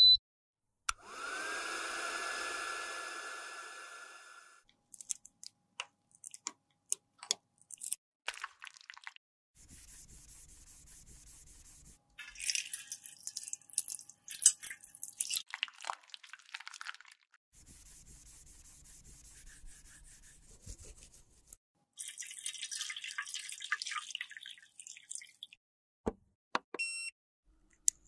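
A small electric motor whirs up and runs steadily for about three and a half seconds, then stops, followed by a few light clicks. Tap water then runs into a stainless steel sink and splashes as a compact's pan is rinsed under it, in two spells of steady running water broken by clattering splashes.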